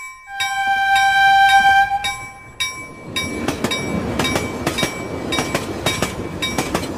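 A train horn sounds one steady note for about two seconds. Then a train passes close by, its wheels clattering with repeated sharp knocks over the rail joints.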